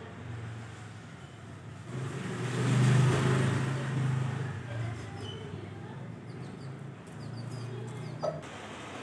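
A motor vehicle passing: its engine hum and road noise rise to a peak about three seconds in, then fade. A steady low engine hum continues, with faint high bird chirps over it.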